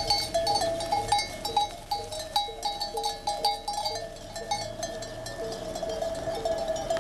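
Many sheep bells clinking and clanking at once as a flock of sheep moves along, a dense jangle of metal strikes over ringing bell tones, with sheep bleating among them.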